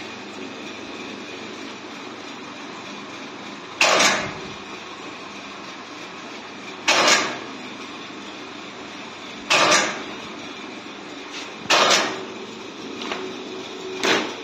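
Notebook wire-stitching machine running with a steady motor hum, its stitching head clanking down five times, every two to three seconds, as each notebook spine is stitched.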